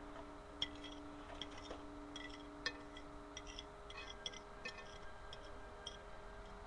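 Light, irregular clicks in small quick clusters, over a steady electrical hum, one tone of which stops about halfway through.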